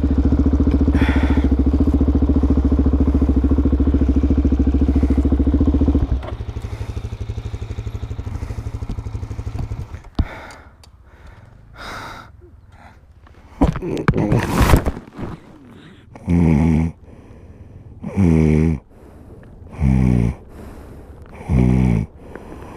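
Motorcycle engine running steadily, dropping in level about six seconds in and stopping about ten seconds in. Then loud snoring, one breath about every two seconds, from a rider who has passed out after a crash.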